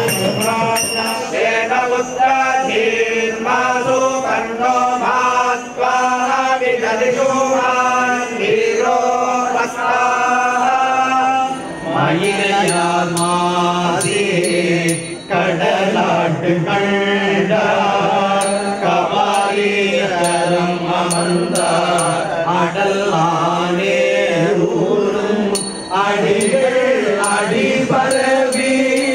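Hindu temple priests chanting Vedic mantras in unison, amplified through handheld microphones, in a steady, melodic recitation on a few held pitches. A light, regular ticking joins about twelve seconds in.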